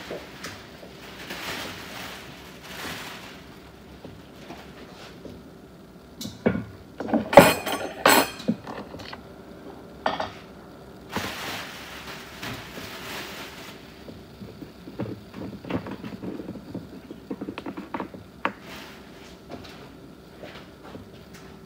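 Kitchen dishes and utensils being handled: scattered clinks and knocks, the loudest a quick cluster of clanks about seven to eight seconds in, with a couple of stretches of hiss.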